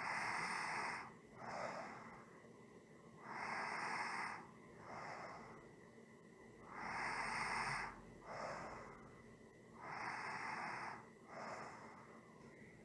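A person breathing slowly and evenly, four breaths, about one every three seconds. Each breath comes in two hissing parts: a longer, louder one followed by a shorter, softer one.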